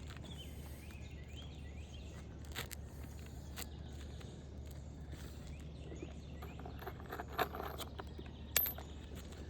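Faint outdoor background hum with a few scattered short clicks and scrapes from hands and tools working on a shingle roof. Some faint high chirps come in the first few seconds.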